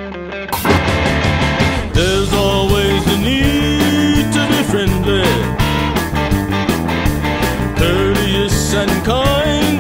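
Rock band music: drums, bass and electric guitar come in fully about half a second in, with a gliding lead melody over a steady beat.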